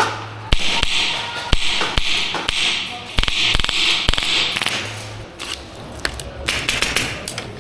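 Airsoft guns firing: scattered sharp shots and BB impacts at irregular spacing, over a run of short hissy bursts about half a second apart.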